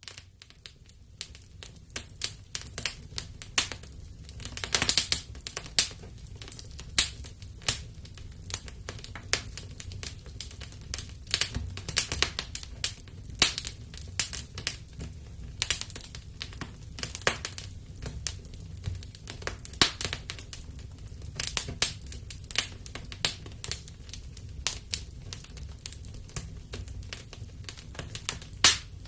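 Wood fire burning in a fireplace: irregular crackles and sharp pops over a low steady rumble of flame.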